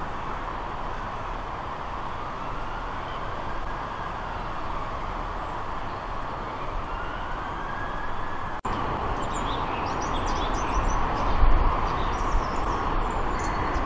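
Steady distant traffic and rail noise, with a slow swell that rises and falls around the middle. After a cut about eight and a half seconds in, small birds chirp faintly over it.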